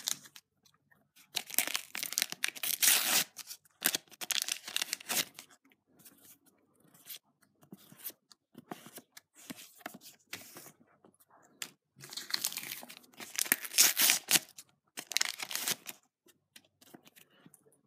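Panini sticker packets being torn open and their wrappers crinkled, in several short noisy bursts. Softer rustling of the stickers being handled comes in between.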